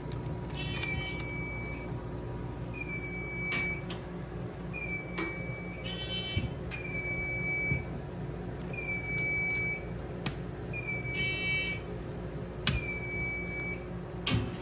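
Electronic fire alarm sounder on a Notifier NFS-320C demo system: a high, steady beep about a second long, repeating every two seconds. A harsher buzzing tone comes in about every five seconds, and there are scattered faint clicks.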